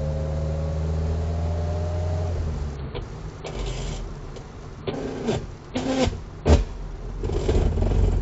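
Opel Olympia Rekord's four-cylinder engine running under way, its pitch rising slightly for about two seconds before it drops away, as during a failed attempt to get the car to stay in third gear. In the second half come several irregular short knocks and rattles.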